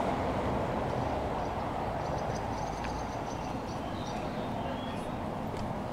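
City street ambience: a steady rumble of passing traffic that slowly eases, with a few faint high notes about halfway through.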